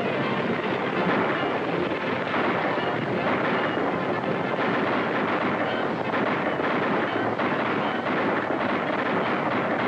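Many horses galloping together, a dense steady drumming of hoofbeats, with music faintly underneath.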